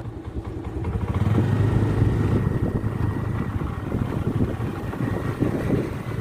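Motor vehicle engine running steadily, growing louder about a second in, with a low hum.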